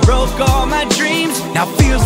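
Music with a beat of deep bass drum hits and a wavering melody line above a dense backing.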